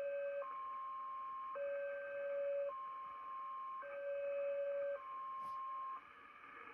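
Unidentified shortwave signal on 4635 kHz heard through a Kenwood TS-850SAT receiver: a lower and a higher tone alternate about once a second, like a two-tone siren, over band noise. The tones stop about six seconds in, leaving static, with a short click just before.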